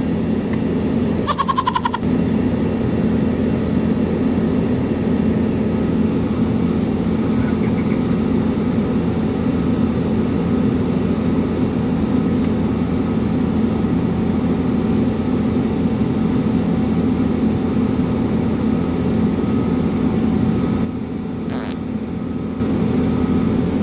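Steady, loud machinery drone around a parked airliner on the ramp, with a brief high chirp about a second in and a short dip in level near the end.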